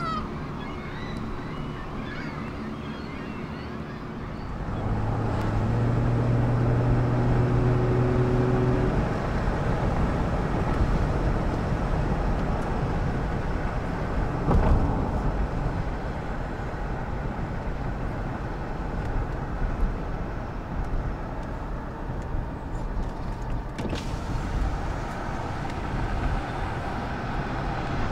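Freight train of double-stacked intermodal containers rolling past a road grade crossing: a steady rumble of wheels on rail. It follows a quieter opening, and a low steady hum rises about five seconds in and stops around nine seconds in.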